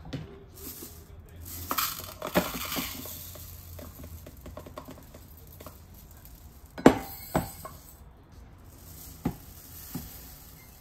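Dry uncooked rice pouring from a plastic rice dispenser into a glass Pyrex measuring cup, a grainy patter of falling grains, with several sharp clicks and clinks of the plastic container against the glass, the loudest about seven seconds in.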